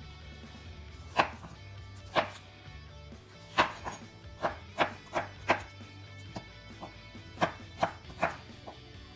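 Chef's knife cutting a raw peeled potato into slices and fry sticks on a wooden cutting board: about a dozen sharp, irregular knocks as the blade comes down through the potato onto the board, starting about a second in.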